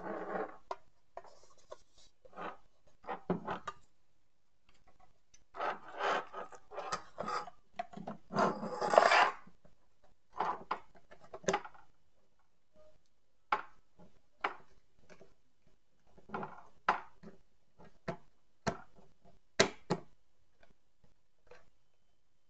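A metal ECU case being handled on a wooden bench while wiring-harness connectors are pushed into it: scattered sharp clicks and knocks, with a louder stretch of rubbing and scraping about six to nine seconds in.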